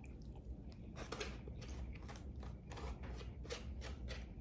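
Close-miked chewing of food with the mouth: a string of short, sharp mouth clicks and soft crunches, several a second.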